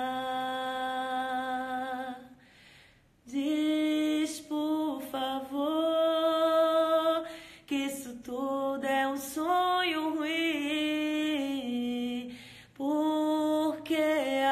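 A woman singing unaccompanied, holding long drawn-out notes with short breaths between phrases, the pitch wavering in runs about two-thirds of the way through.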